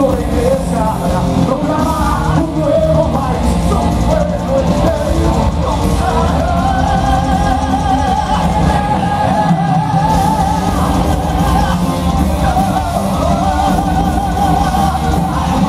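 Heavy metal band playing live, with distorted guitars, bass and drums under two lead vocalists singing and yelling; from about six seconds in a voice holds a long wavering note. Heard from the audience.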